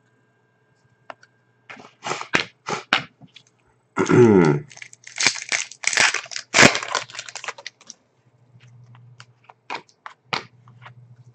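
Foil wrapper of a trading card pack being torn open and crinkled, with cards snapping and shuffling against each other in clusters of sharp rustles. About four seconds in comes a short falling vocal sound, like a throat-clearing.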